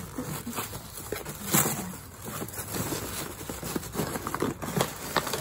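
Cardboard box flaps being bent open and paper packing rustling as hands dig into a mail box, with irregular light knocks and scrapes of cardboard.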